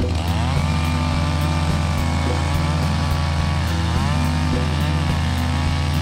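Two-stroke chainsaw running and cutting through old softwood timber from a demolished building. Its engine pitch dips and rises again as the chain bites, near the start and again about four seconds in.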